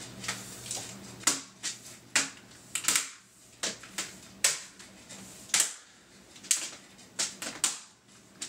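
Plastic snap-fit clips of a Logitech K830 keyboard's case clicking into place as the two case halves are pressed together by hand along the edge: a dozen or more sharp clicks at irregular intervals, some in quick pairs.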